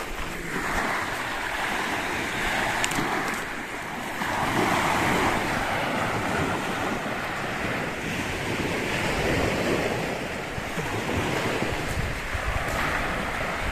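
Sea surf washing onto a beach, a steady rush of waves that swells and eases every few seconds, with wind buffeting the microphone.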